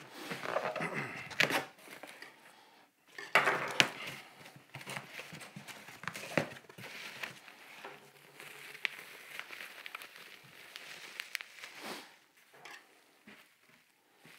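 Cardboard box being cut open and unpacked: tape and cardboard flaps scraping and rustling, and plastic wrapping crinkling as items are lifted out, in scattered bursts with a few sharp scrapes.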